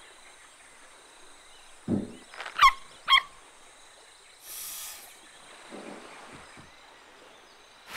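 Cartoon animal sound effects for a water monitor: a soft thump about two seconds in, then two short warbling squeaks, and a brief hiss a little later.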